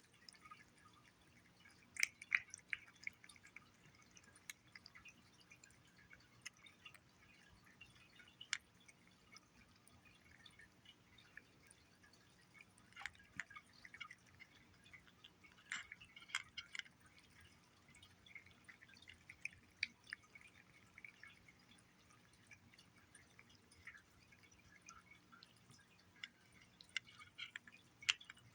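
Cat eating chicken paté wet cat food: faint, irregular wet smacking and licking clicks that come in clusters.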